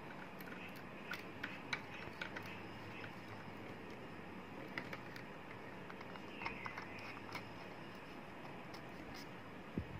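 Faint, scattered small clicks and taps of a phone holder's plastic and metal parts being handled, as the knurled knob of the phone clamp is turned on its threaded post and fitted onto the ball-head mount. The clicks come in two loose clusters, early and again past the middle, over a low steady hiss.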